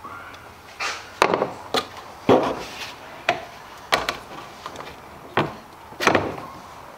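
Hollow plastic knocks and scraping as the air intake tube is twisted and pulled off the engine's throttle body, about eight sharp clunks spread unevenly over several seconds.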